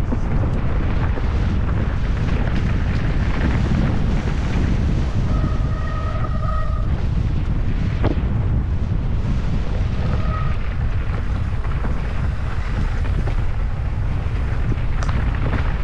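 Wind buffeting the microphone of a camera riding along on a mountain bike, a steady loud rumble from the ride and trail. A short held tone sounds twice over it.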